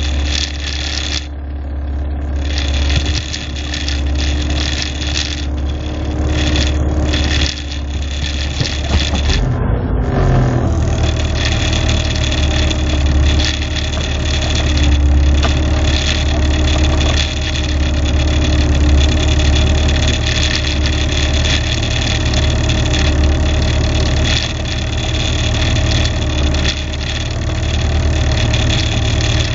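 Moskvitch 412's four-cylinder engine running with the car standing still. About ten seconds in its speed rises and then holds steady at the higher note.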